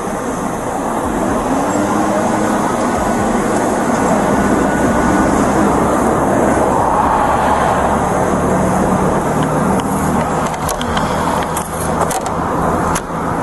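Steady vehicle or traffic noise picked up by a body-worn camera's microphone, swelling over the first couple of seconds and then holding, with a few sharp clicks near the end.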